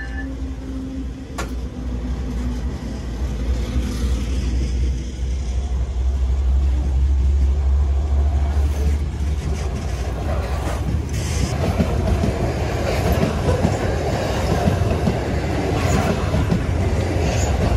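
Diesel-hauled freight train passing close by. The last of a locomotive horn blast fades in the first second, then a deep locomotive engine rumble, then the steady rolling clatter of freight wagons' wheels over the rail joints, growing louder in the second half.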